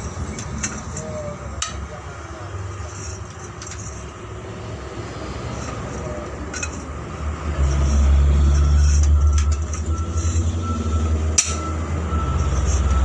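A truck's diesel engine running with a low rumble that gets louder about halfway through. A few sharp metal clinks sound over it.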